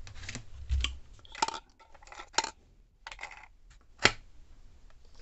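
A string of sharp clicks and clinks as AA batteries and the hard plastic base cover of a smart soap dispenser are handled and fitted together, about six in all. The loudest is a single snap about four seconds in.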